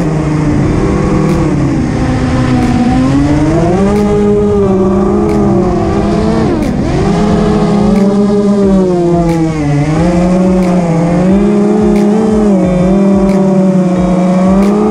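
FPV quadcopter's motors and propellers whining in flight, the pitch rising and falling with the throttle and dropping sharply then climbing back about halfway through.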